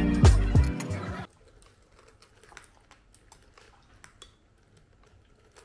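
Background music with a steady beat that cuts off about a second in, followed by faint scattered small clicks and taps.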